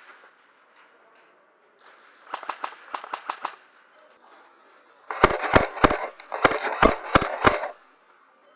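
Airsoft guns firing strings of single shots: a quick run of about seven fainter shots, then, a couple of seconds later, about seven louder, heavier shots at roughly three a second.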